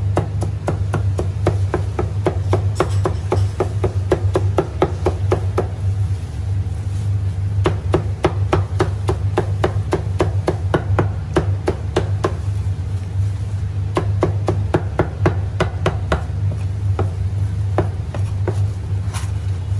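Steel cleaver chopping meat, aspic and green peppers on a thick round wooden chopping block: rapid knocks, several a second, in runs with short pauses. A steady low hum runs underneath.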